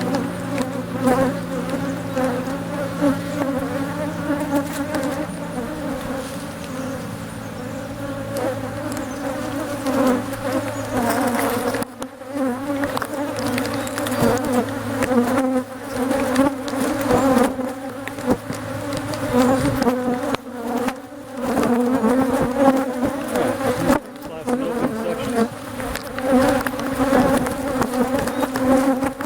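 A mass of honeybees buzzing steadily around their colony in a felled hollow tree, a loud, full hum from bees stirred up by the disturbance.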